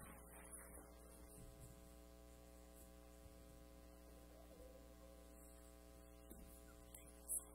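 Near silence with a steady electrical mains hum from the sound system, and a short click near the end.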